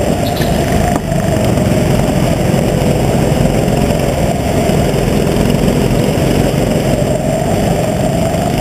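Onboard sound of a racing go-kart's engine running hard, its pitch sagging a little early on and climbing again near the end as the kart slows for a corner and accelerates out.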